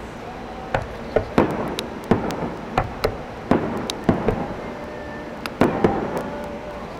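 Aerial fireworks shells bursting: an irregular run of about a dozen sharp bangs and pops, some with a brief crackle after them.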